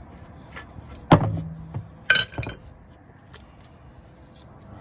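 A few sharp metal clinks and knocks, about one and two seconds in, the first and loudest ringing briefly, from hand tools and gas pipe fittings being handled during a furnace gas valve replacement.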